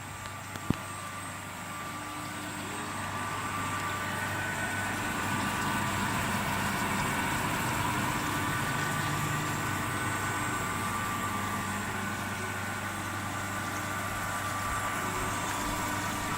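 Industrial straight knife grinder running: a steady motor hum with a spread-out grinding hiss that builds over the first few seconds and then holds level. One sharp click comes just under a second in.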